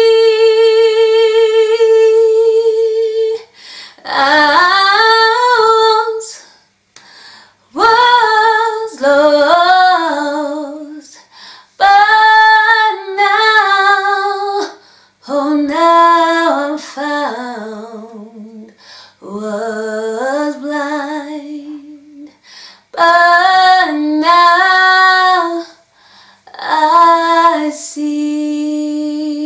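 A woman singing solo and unaccompanied, in slow phrases with long held notes and short pauses for breath between them.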